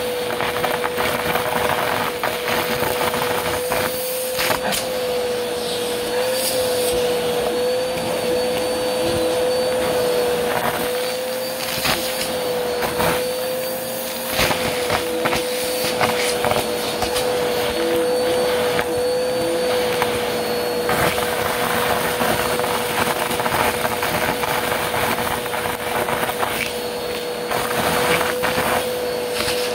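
Upright vacuum cleaner running with a steady, slightly wavering motor tone while its crevice tool sucks up confetti and glitter from carpet. Scattered sharp clicks and crackles come as the pieces are pulled into the nozzle and up the hose.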